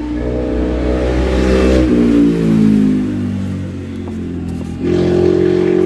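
A motor vehicle's engine revving as it passes, with a low rumble. Its pitch bends about two seconds in and it fades by about four seconds. Another steady engine hum comes in near the end.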